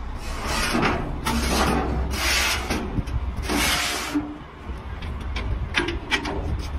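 Metal loading ramp of a car-transporter trailer being pulled out, scraping in four strokes, followed by a few short metallic clicks near the end. A low steady rumble runs underneath.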